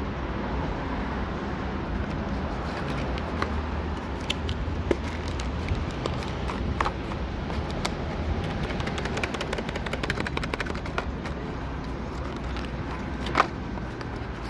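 Small cardboard condom box being handled: scattered light clicks and crackles, with one sharper click near the end, over a steady low rumble.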